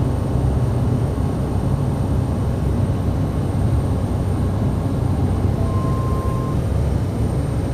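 Cessna Caravan Amphibian's Pratt & Whitney PT6A turboprop engine and propeller running steadily in flight, heard inside the cockpit as a deep drone with a thin high whine over it.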